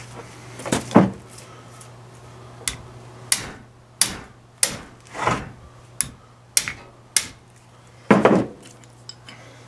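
Wrench and metal clanks and knocks while loosening the ring gear bolts on a Dana 44 limited-slip carrier held without a vise: a row of separate sharp knocks, most about two-thirds of a second apart, with a longer, louder clatter near the end.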